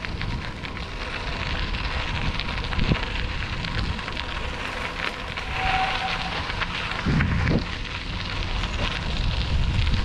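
Wind noise on the microphone and bicycle tyres crackling over a gravel path while riding a single-speed bike, a steady crackly rush throughout.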